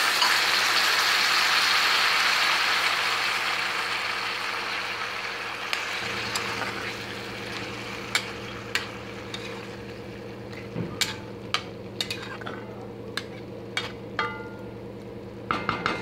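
Water sizzling as it hits hot oil and masala in a kadai of frying potatoes, added so the potatoes can cook. The sizzle is loud at first and dies down over the first several seconds, giving way to scattered sharp clicks and pops over a steady low hum.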